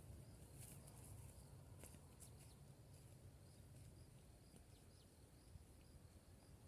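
Near silence: faint outdoor ambience with a low rumble and faint, short, high chirps repeating every so often, likely distant birds.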